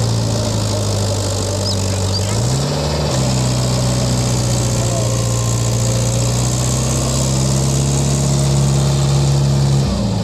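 Mahindra Yuvo tractor's diesel engine running hard as the tractor, bogged in wet mud, tries to pull itself out. The engine speed steps up about two and a half seconds in, holds steady, and drops back just before the end.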